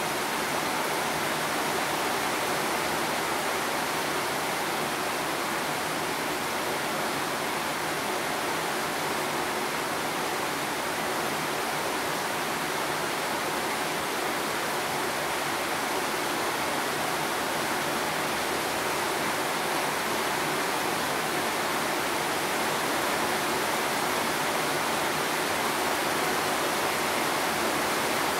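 Rain falling steadily, an even hiss with no single drops or knocks standing out.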